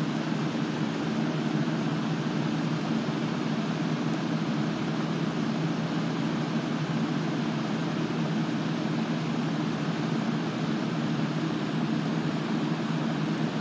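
A steady, unchanging machine hum with a rushing air noise over it.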